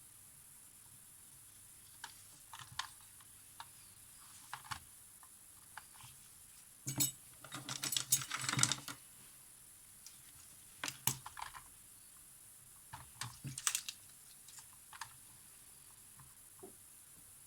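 Scattered light clicks and taps of small tools and camera parts being handled, with a denser run of quick clicks about halfway through.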